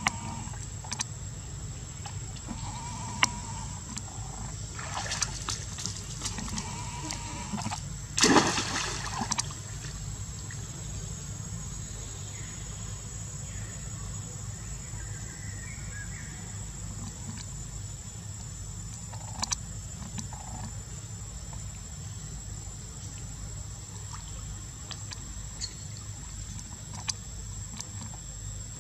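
A monkey jumps into a stone-lined pool with one loud splash about eight seconds in, followed by quieter water movement as it swims. Before the splash there are a few short, high-pitched monkey calls. A steady low background hum runs underneath.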